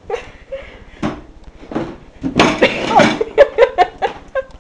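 Young women laughing and shrieking, with a loud noisy outburst about two and a half seconds in, followed by short bursts of laughter.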